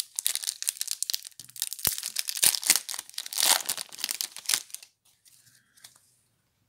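A foil Magic: The Gathering booster pack wrapper being torn open and crinkled by hand: a dense crackling rustle that stops about five seconds in.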